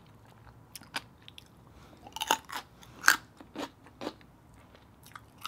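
Close-up crunchy chewing of a raw red radish: scattered crisp crunches, thickest about two to three seconds in.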